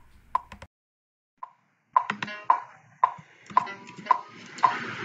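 Metronome ticking steadily about twice a second. The clicks drop out for about a second near the start, then carry on.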